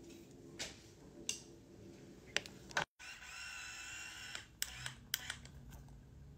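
Faint clicks and handling noises as a curling wand is wound through hair and handled. After a short break in the middle comes a faint high steady whine for about a second and a half.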